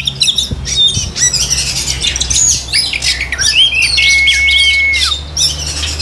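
Many caged songbirds calling at once: quick chirps, squawks and rising and falling whistles overlapping, with one long level whistle held for about a second, four seconds in. A low steady hum runs underneath.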